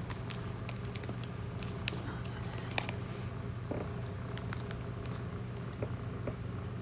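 Light clicks and rustles of trading cards being handled, coming thickly at first and thinning out after about three seconds, over a steady low hum.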